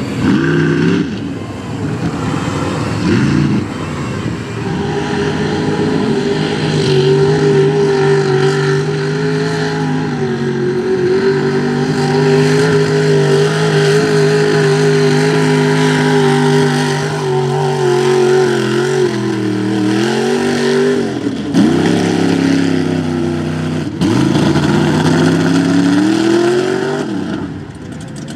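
Mud bog truck's engine revving hard and held at high revs for a long pull. Near the end it drops off sharply twice, climbs in pitch once more, then falls away.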